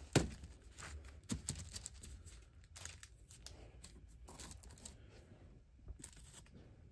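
Hands rustling the paper that covers a worktable and setting small black blocks down on a balsa sheet: a sharp knock just after the start, then a few softer knocks and taps between stretches of paper crinkling.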